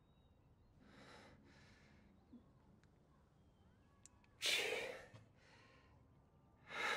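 A person breathing heavily: a few faint breaths, then a loud, sharp sighing exhale about four and a half seconds in and another breath near the end.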